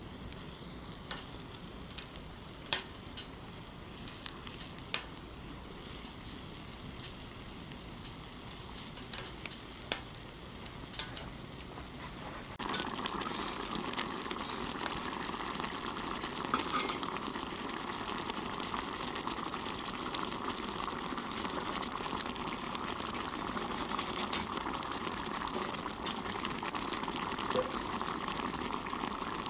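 Hamburger steaks cooking in a pan over a wood fire: a faint sizzle with scattered sharp pops and crackles, then about twelve seconds in the sound steps up abruptly to a louder, steady sizzling and bubbling, as of the pan bubbling hard.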